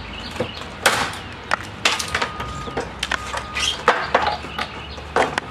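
An old wooden door jamb being pried out with a steel pry bar: a run of sharp cracks, knocks and creaks as the wood and its nails give, with a thin squeak twice in the middle.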